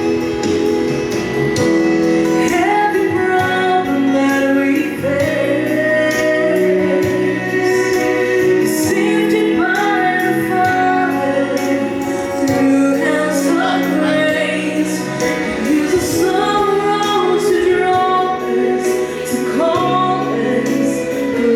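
Gospel vocal group singing in harmony, women's voices to the fore, over instrumental backing with a steady bass line and light cymbal strokes, played through a church sound system.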